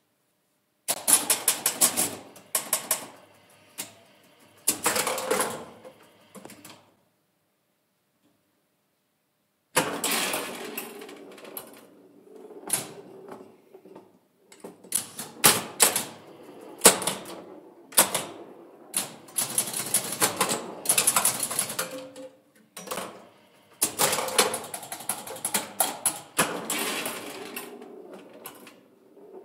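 1965 Bally Six Sticks electromechanical pinball machine in play: rapid clacks and snaps of flippers, pop bumpers and relays, with score reels clicking over, in dense bursts. The clatter breaks off for about three seconds around seven seconds in, then picks up again.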